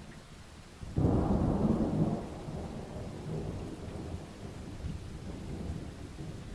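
A thunderclap about a second in: a sudden loud crack that rolls into a low rumble, fading slowly over the next few seconds, over a steady hiss of rain.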